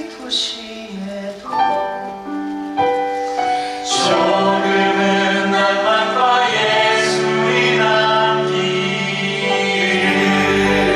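Musical theatre cast singing together in harmony, a live stage performance with held notes that swell and grow louder about four seconds in.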